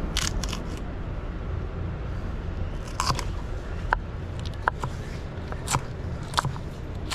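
Kitchen knife slicing a green chili pepper on a plastic cutting board: crisp cuts, each ending in a sharp knock of the blade on the board, about eight irregularly spaced strokes.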